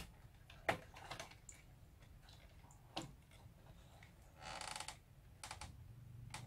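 Faint handling noises from the circuit boards and chassis of an opened Hitachi VT-88 VCR: a few light clicks and knocks, with a short scrape about halfway through.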